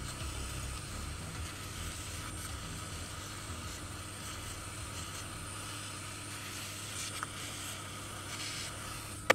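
Hot air gun blowing steadily with an even hiss over a water-damaged iPhone XR logic board.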